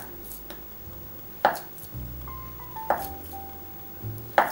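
Chef's knife slicing through a block of Spam and knocking on a wooden cutting board: four sharp knocks about a second and a half apart, over soft background music.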